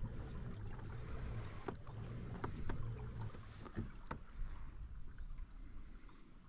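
Pedal-drive fishing kayak being pedalled through calm water, with a steady low churn from the drive that stops about three seconds in. Several sharp clicks follow as the rod and reel are handled.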